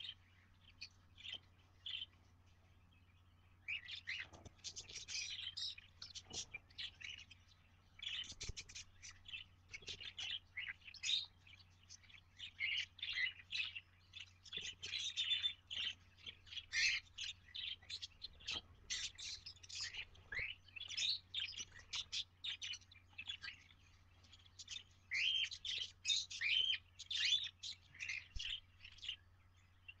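Cockatiel and budgie chicks and their parents calling inside the nest box: dense runs of short, high chirps and squeaks starting about four seconds in, with brief gaps. A faint steady low hum lies underneath.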